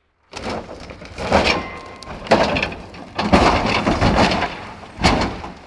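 Dodge Ram pickup truck tumbling down a steep dirt embankment in a rollover test: a series of heavy crashes about once a second as the body slams into the ground, with rumbling between them.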